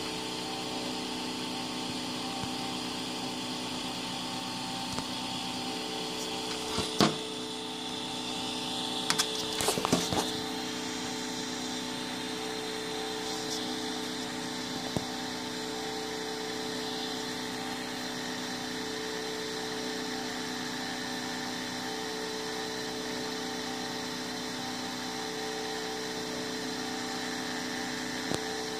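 Homemade 3D printer running while its hot end extrudes filament: a steady electric motor hum made of several tones, with one higher tone that comes and goes from about six seconds in. A few sharp clicks sound around seven and ten seconds in.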